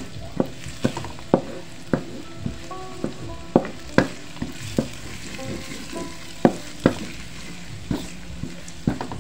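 Wooden spatula knocking and scraping against a wok while diced carrots are stir-fried in melted margarine, over a steady sizzle. The knocks come irregularly, about two a second, with a short pause midway.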